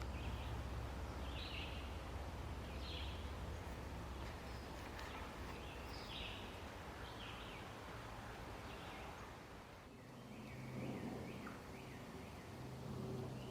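Outdoor woodland ambience: a steady low hum under short, high bird chirps, some falling in pitch, scattered about once a second.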